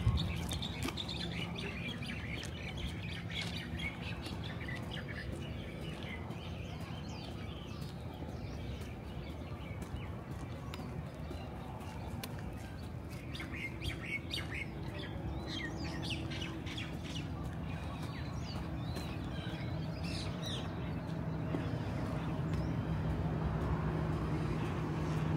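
Small birds chirping in quick high bursts, busiest near the start and again about halfway through, over a steady low street hum that grows louder near the end.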